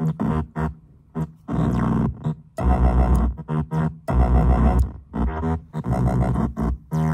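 Synthrotek Chaos NAND (4093 NAND-gate) noise pedal run through a Chase Bliss Habit delay and played over a speaker: choppy electronic tones cutting in and out irregularly, some bursts short and some over half a second long, the pitch shifting as the noise pedal's knobs are turned.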